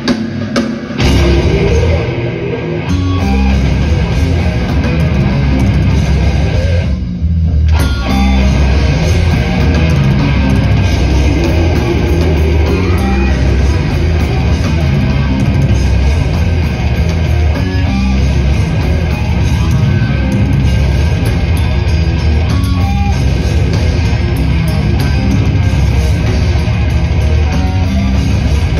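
Death metal band playing live at full volume, heard from the crowd: distorted electric guitars, bass and drum kit. About seven seconds in, the band stops for under a second and only the low end carries on.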